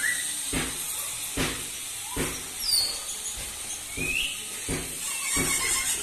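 Parrots giving a few short squeaky whistles, some rising and one falling in pitch, over a steady hiss, with a dull thump repeating about every 0.8 s.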